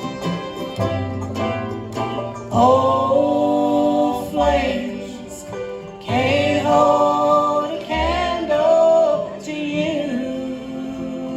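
Live bluegrass band playing: quick picked notes on plucked strings over a walking bass, then two long held melody notes that bend and waver in pitch, a few seconds apart.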